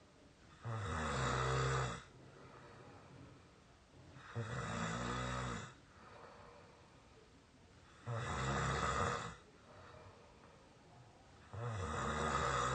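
A sleeping person snoring with a squeaky edge: four snores about every three and a half to four seconds, each lasting a little over a second.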